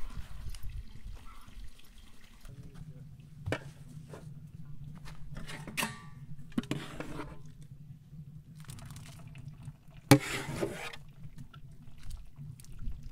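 A ladle scooping boiled rice out of an aluminium pot and tipping it into an aluminium colander: several sharp clanks of the ladle on the metal, the loudest about ten seconds in, with the cooking liquid splashing and dripping through the colander into the basin below. A steady low hum runs under it from a couple of seconds in.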